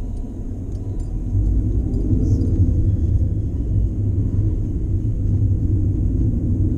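Steady low rumble of a car driving, heard from inside the cabin: road and engine noise, growing louder about a second in.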